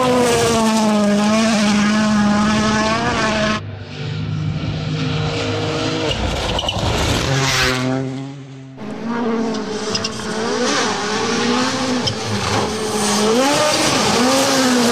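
WRC Rally1 cars (Ford Puma Rally1 and Hyundai i20 N Rally1) driven flat out on a gravel stage, their turbocharged engines revving up and down through gear changes as the tyres spray gravel. Three separate passes, with abrupt switches about 3.5 and 9 seconds in.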